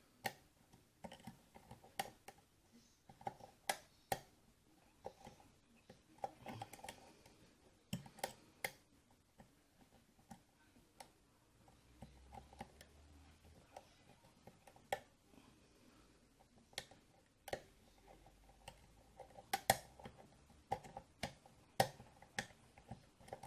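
Scattered light metallic clicks and ticks of a lock pick working the pin stack of an EVVA EPS cylinder lock under tension from a tension wrench.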